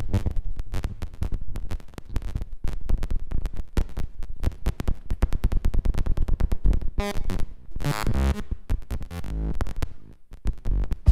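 Free-improvised electronic music from an analog modular synthesizer and laptop: a dense stream of rapid, stuttering clicks and pulses, with a few pitched tones breaking through about two-thirds of the way in and a short drop in level near the end.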